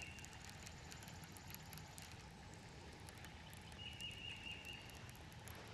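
Quiet lakeside ambience with a songbird's thin, high trill lasting about a second, about four seconds in, and scattered light ticks.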